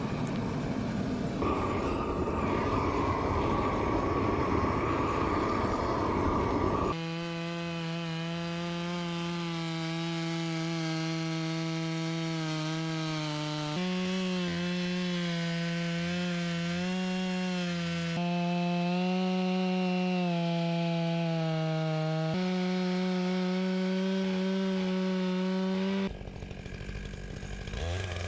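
A propane torch roars for the first several seconds. Then a Stihl 661 chainsaw on a 36-inch Granberg Alaskan mill runs at steady high revs, ripping along a log, its pitch jumping abruptly a few times. It stops near the end.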